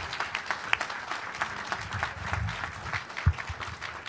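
A small seated audience applauding with hand claps, with one low thump about three seconds in.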